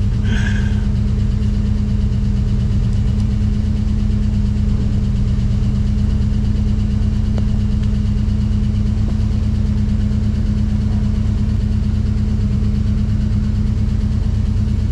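Holden Commodore engine idling steadily, warming up after its first start of the day.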